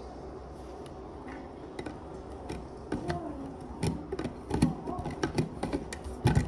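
Plastic clicks and taps as the lid is fitted and screwed onto a BlendPro portable blender's plastic cup, irregular and more frequent in the second half.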